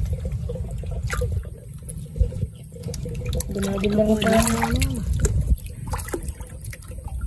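Shallow rice-paddy water splashing and trickling as hands feel through it, over a steady low rumble, with a short drawn-out voice sound about halfway through.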